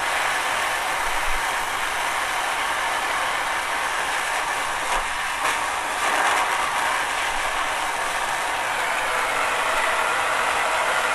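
Handheld gas torch flame hissing steadily while it heats a valve's joint on copper pipe for soldering.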